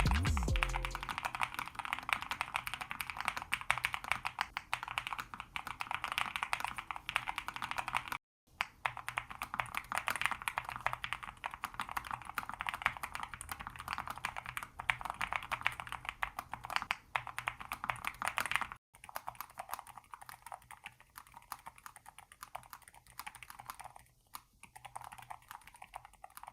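Fast typing on a Nuphy Air75 V3 low-profile mechanical keyboard: a dense patter of key clicks in three takes, one each with Red, Brown and Blush switches, cut apart twice. The last take is noticeably quieter.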